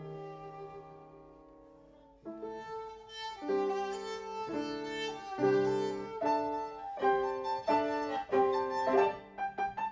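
Viola and grand piano playing classical chamber music. A held low note dies away, then about two seconds in the duo moves into a livelier passage that grows louder, with short repeated notes near the end.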